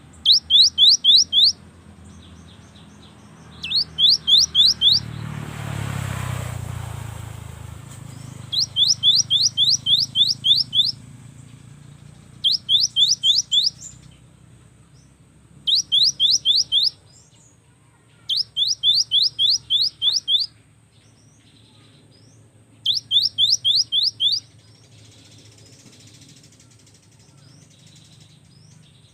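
Cinereous tit (gelatik batu) singing in loud bouts of one to two seconds, each a quick run of repeated upward-sweeping whistled notes at about four to five a second, with pauses between bouts. A swell of rushing noise rises and fades about a fifth of the way in.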